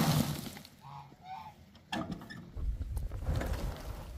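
Two short calls from farm fowl about a second in, following a rustling scrape at the start; a sharp click and a low rumbling noise come in the second half.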